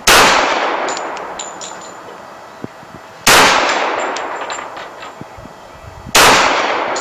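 Three pistol shots from a Dan Wesson Valor 1911, about three seconds apart, each one ringing out and dying away over a couple of seconds, with a few light clicks after each.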